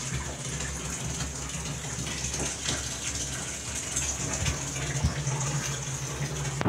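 Water running steadily from a tap into a bathtub, a constant rushing hiss.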